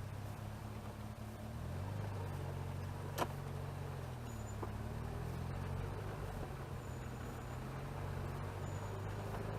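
Chevrolet Chevette's four-cylinder engine running while driving, heard from inside the car, its pitch stepping up and down with speed changes. A single sharp click sounds about three seconds in.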